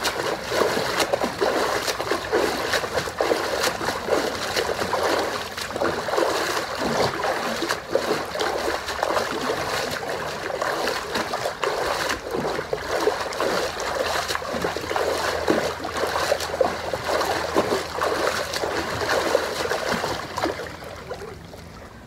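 Water splashing steadily as legs flutter-kick at the surface of an inflatable pool, the feet slapping the water over and over, dying down just before the end.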